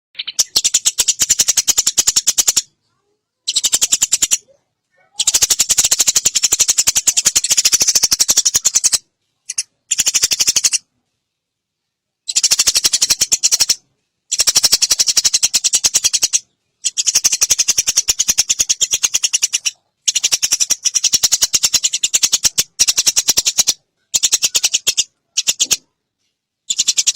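Eurasian tree sparrow giving long, very rapid high-pitched chattering calls, in about a dozen bursts of one to four seconds broken by short silences.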